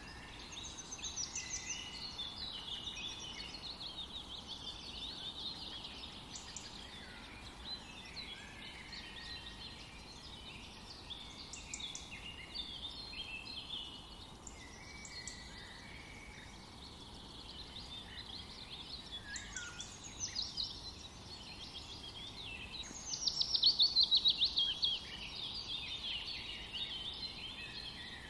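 Several birds chirping and singing, short calls and trills overlapping. A fast trill near the end is the loudest.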